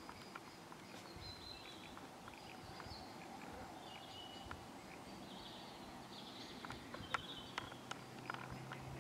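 Quiet woodland sound: distant birdsong, with scattered small clicks and scuffs from European badgers moving and digging at their sett entrance, coming more often near the end. A low steady hum comes in about two-thirds of the way through.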